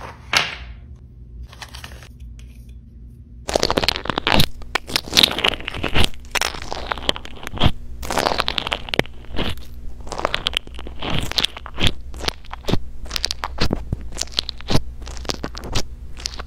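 A brief rustle, then from about three and a half seconds in, crunchy bingsu-textured slime crackling and popping in quick, dense clicks. It is being pressed and squished with a toy mini microphone held down into it.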